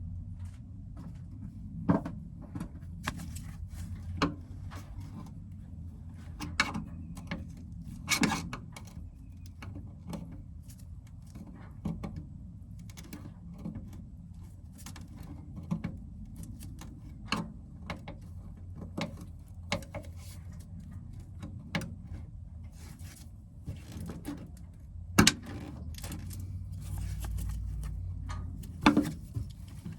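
Irregular clicks and knocks from hands working an old car wiring harness loose: plastic connectors, clips and tools handled. The loudest knocks come about two seconds in, about eight seconds in, and twice near the end, over a steady low hum.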